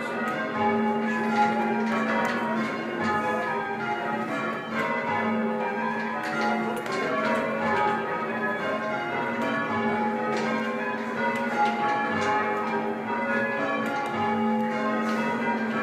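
Church tower bells change ringing: a ring of bells struck one after another in a steady, unbroken run, their notes overlapping and ringing on.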